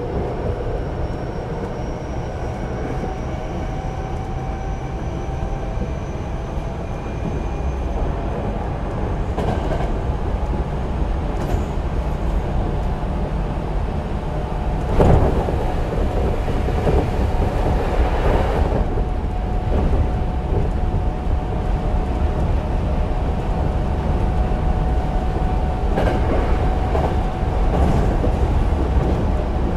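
Hankyu 8000 series electric train with Toshiba GTO-VVVF inverter control running at speed, heard on board: steady wheel and motor noise with rail-joint clicks and a faint whine rising in pitch over the first several seconds. About halfway through comes a sharp knock, then a few seconds of louder rushing noise.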